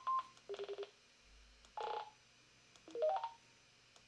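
Roger-beep tones from the Radioddity CS-47 CB radio, each option played as a sample while the setting is stepped through: the tail of a string of short high beeps at the start, four quick lower beeps about half a second in, a single beep about two seconds in, and a short rising run of tones about three seconds in.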